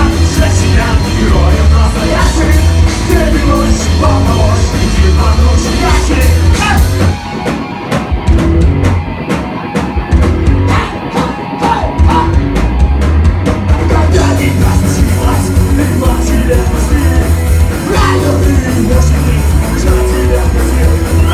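Loud punk rock song with a driving drum kit, heavy bass, guitar and singing; for several seconds near the middle the bass and cymbals drop back to a sparser beat before the full band returns.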